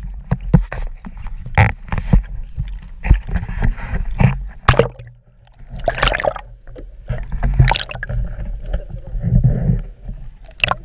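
Sea water sloshing and gurgling over a submerged camera's housing, with irregular splashes and knocks over a muffled low rumble.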